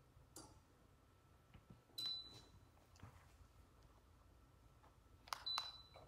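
Clicks of a ceiling fan remote's buttons, two of them answered by a short high beep from the Biukis DC ceiling fan's receiver as it takes the command, about two seconds in and again near the end, when the fan's light comes on. A faint steady high tone lies underneath.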